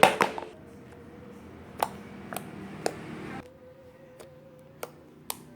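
Crunchy slime being pressed and squeezed, giving a handful of sharp crackling pops, the loudest cluster right at the start and single pops about every half second to second after.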